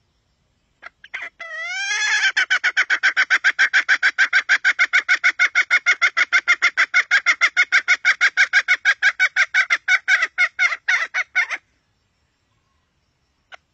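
Red junglefowl hen clucking: a few rising notes, then a long, evenly spaced run of short clucks at about five a second, which stops abruptly after about ten seconds.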